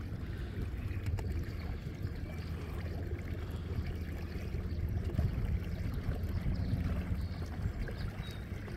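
Steady low rumble of a boat on open lake water, with water washing against the hull.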